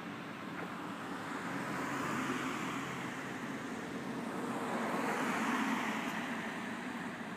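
Road traffic: two cars passing one after the other, their tyre and engine noise swelling and fading over a steady background hum.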